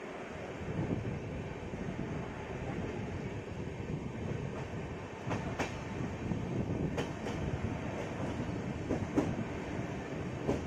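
Indian express passenger train running on the rails: a steady rumble with sharp wheel clicks in pairs every couple of seconds in the second half.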